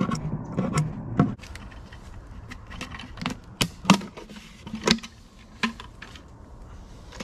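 Scattered sharp clicks and knocks of plastic being handled: one-gallon plastic feed buckets and their lids, with a few louder taps around the middle.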